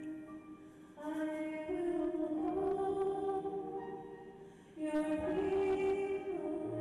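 A woman singing a slow hymn in long held notes, in two phrases with a short pause between them.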